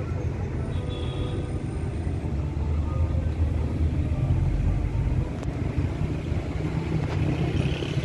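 Car driving on a city road, heard from inside the car: a steady low rumble of engine and tyres.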